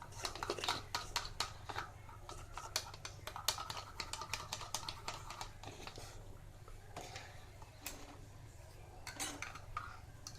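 Raw eggs being stirred and beaten in a bowl with a metal utensil: quick, irregular clinks and taps of the utensil against the bowl.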